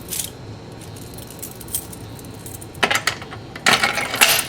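A ring of keys, including a Cat 30 key, jangling and clinking as it is handled: a brief rattle at the start, then heavier bursts of clinking in the last second and a half.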